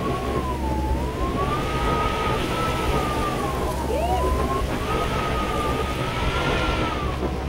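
Blizzard wind blowing hard, with a high, thin howl that slowly wavers up and down in pitch, over the low steady drone of snowmobile engines.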